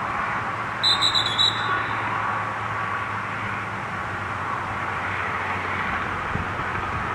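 Dog-training whistle blown as a quick run of four or five short high pips about a second in, the multiple-toot come-in signal used to recall a retriever. Steady background noise runs underneath.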